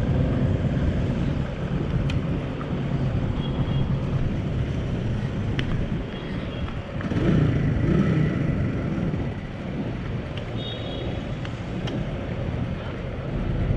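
Steady low rumble of a running motor vehicle engine, swelling for a couple of seconds midway, with a few light clicks; near the end a click as the motorcycle's key-released seat latch is opened.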